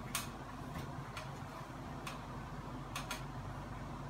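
About six irregular sharp clicks and taps from hand work at the ceiling during a ceiling fan installation, two of them close together near the end, over a steady low hum.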